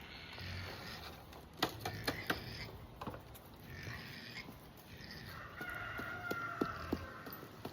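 Chickens calling, with one drawn-out call held for over a second starting about five seconds in. A few sharp clicks near two seconds.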